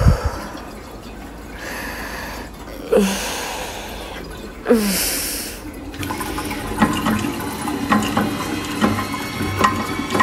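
A toilet flushing: the tank lever is pressed about six seconds in, followed by water rushing and gurgling into the bowl. Before it come three short breathy rushes of noise, each opening with a brief falling tone.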